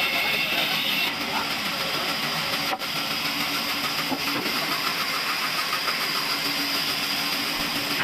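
Sawmill saws running and ripping wooden planks into slats: a steady machine hiss and whine. A higher cutting tone drops away about a second in, and there is a brief break near three seconds.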